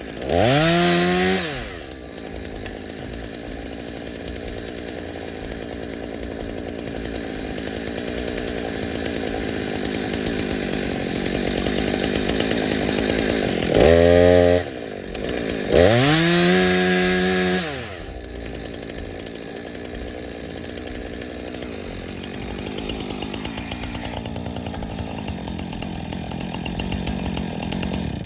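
Jonsered CS2255 two-stroke chainsaw running and cutting birch, its engine revving up to full throttle and dropping back three times: about a second in, then twice in quick succession around halfway. In between it runs steadily at a lower, laboured pitch under load in the cut, and it stops abruptly at the very end.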